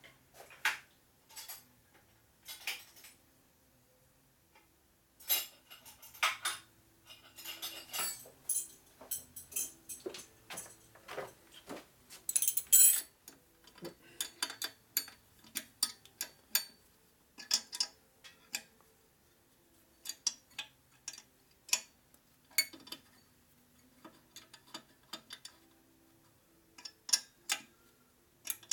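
Hand wrench working a bolt tight on metal engine parts: irregular metal clicks and clinks, busiest in the middle and loudest about 12 to 13 seconds in.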